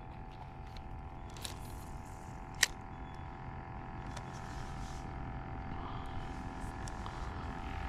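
A steady low hum with several faint level tones above it, broken by a few short clicks; the sharpest and loudest click comes about two and a half seconds in.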